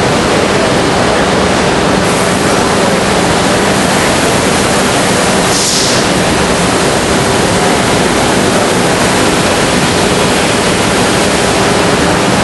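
Steady, loud machinery and hall noise with a faint low hum, and a short hiss about six seconds in.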